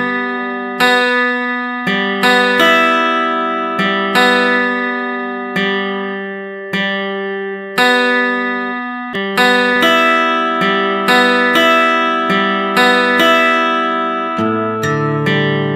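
Background music: plucked acoustic guitar chords, each struck and left ringing, in an unhurried rhythm.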